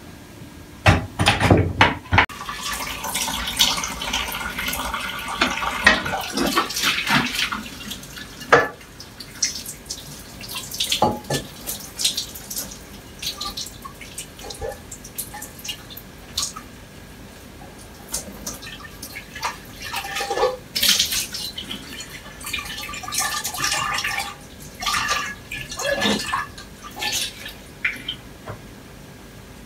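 Washing up by hand at a kitchen sink: tap water running and splashing in spells, with knocks and clatter of dishes. Sharp knocks about a second in as a wooden chopping board goes into a wire dish rack.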